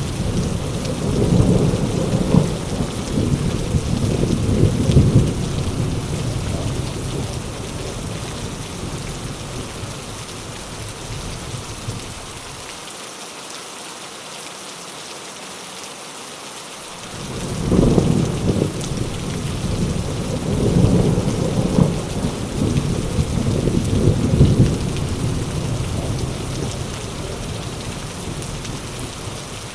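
Heavy rain hissing steadily, with rolling thunder rumbling low beneath it. The thunder fades away around the middle, leaving only the rain for a few seconds. A fresh roll of thunder then starts about 18 seconds in and slowly dies down.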